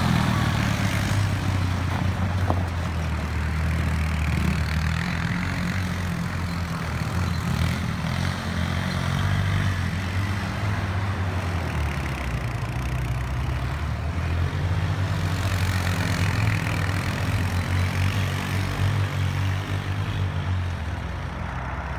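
Hammerhead R-150 utility vehicle's small single-cylinder gas engine running steadily as it is driven over snow.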